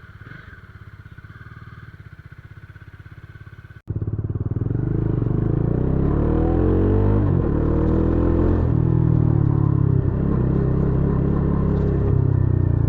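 Bajaj Dominar 400's single-cylinder engine and exhaust, heard faintly running for the first few seconds and then, after an abrupt cut, loud as the bike pulls away. The pitch climbs under acceleration, drops sharply at an upshift about halfway through, and the engine then runs steadily.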